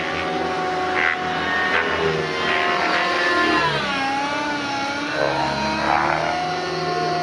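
O.S. MAX-55HZ two-stroke glow engine and rotor of a Vibe 50 NEX RC helicopter in 3D flight, its pitch sliding down and back up several times as it manoeuvres and passes by.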